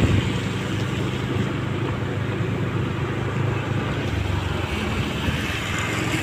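Motorcycle engine running steadily while riding at an even pace.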